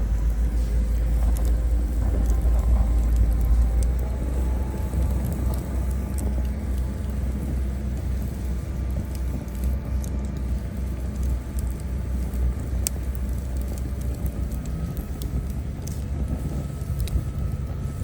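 Wood campfire crackling, with scattered sharp pops, over a steady low rumble and faint drifting tones.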